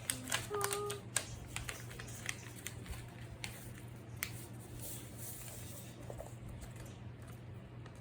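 Paper being handled during a paper craft: scattered light clicks, taps and rustles over a low steady hum.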